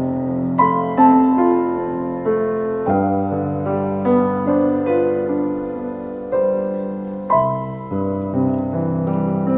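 Solo piano music: held chords in the low and middle range with a melody of struck notes above, a new note or chord about every half second to a second.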